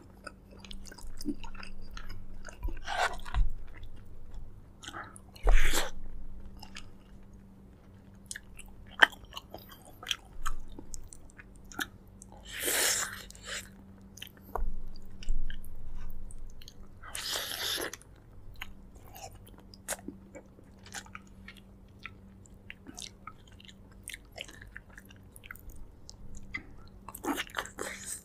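Close-miked chewing and biting of braised pork leg: many small wet mouth clicks, with a few louder, longer noisy bursts spread through.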